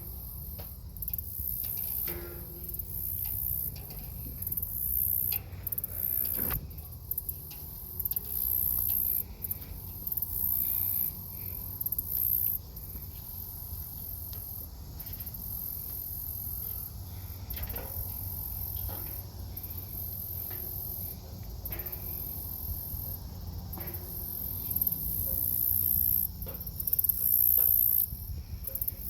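Insects singing in a chorus: a high-pitched buzz that keeps breaking off and starting again every second or two, over a low rumble.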